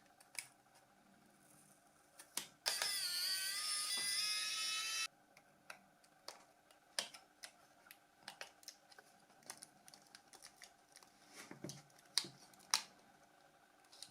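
Scattered small clicks and taps of a plastic mobile phone being handled and taken apart. About three seconds in, a loud whine of several pitches dips then rises for about two and a half seconds and cuts off suddenly.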